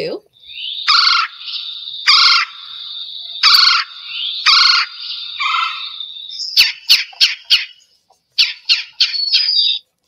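Recorded red-bellied woodpecker calls played back: five rolling, trilling calls about a second apart over a faint steady high tone, then two quick runs of short, sharp notes.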